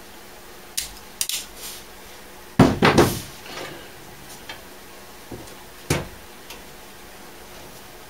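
Wire strippers clamping and pulling insulation off power-supply wires: a handful of sharp metallic clicks and snaps, the loudest cluster about two and a half to three seconds in.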